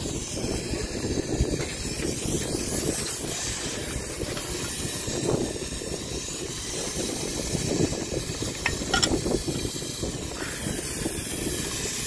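Steam hissing steadily from the fittings of a Merryweather steam fire-engine boiler as it is fired up, with a couple of sharp clicks about nine seconds in.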